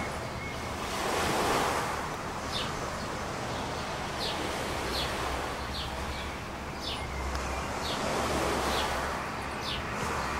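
Sea surf washing in with wind, the rush of the water swelling twice. Faint short high chirps repeat about once a second over it.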